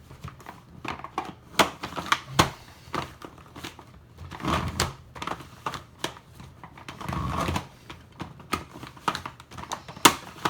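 Giant 18 cm plastic He Shu 3x3 Rubik's cube being turned: irregular plastic clacks and knocks with a few longer scraping rasps as the stiff layers are forced round, a cube that is hard to turn and keeps locking up.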